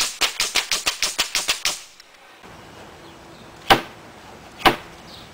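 Pneumatic nail gun firing fast, about eight shots a second for nearly two seconds, then two single shots about a second apart.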